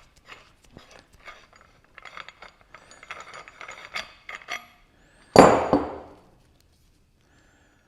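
Small metallic clicks and rattles as a Pittsburgh 3/4-inch pipe clamp fixture is handled and taken apart, then, about five seconds in, one loud metal clank that rings out for about a second.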